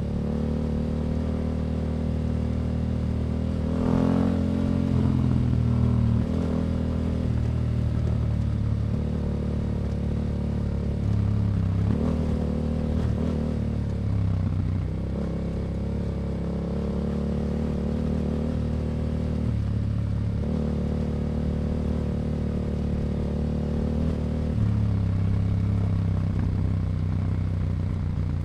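Yamaha Ténéré 700's parallel-twin engine through an Akrapovic exhaust, running under way. Its pitch steps and shifts several times as the rider works the throttle and gears, with louder pulls at about four seconds, around twelve seconds and again near the end.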